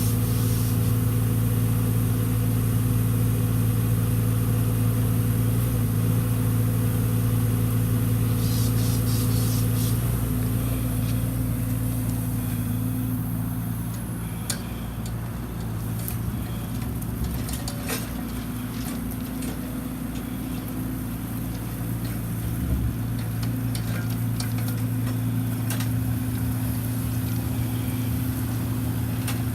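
Caterpillar 300.9D micro excavator's small diesel engine running steadily, with a few light clicks in the second half.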